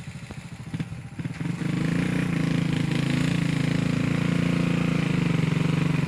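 Motorcycle engine of a motorized tricycle (motorcycle with sidecar) running, getting louder about a second and a half in as it comes up close, then running steadily.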